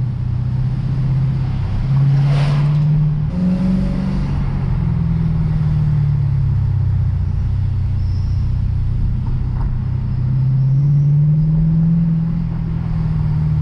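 Lexus RC F's 5.0-litre V8 running while driving through town, its note rising and falling with throttle: it climbs about two seconds in, steps up briefly, eases back, then climbs gradually again near the end before settling.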